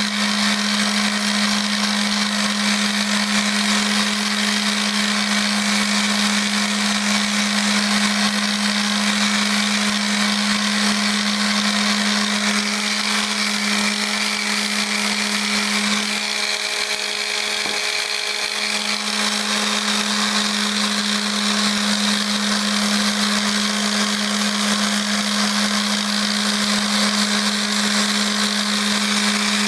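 Corded electric mouse (detail) sander running steadily, its pad sanding a balsa wood dragster body: a steady hum with the hiss of sandpaper on wood. The hum drops away briefly a little past halfway, then comes back.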